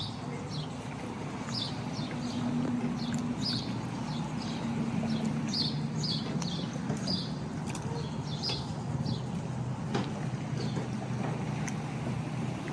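Birds chirping, many short high chirps about once or twice a second, over a steady low engine hum.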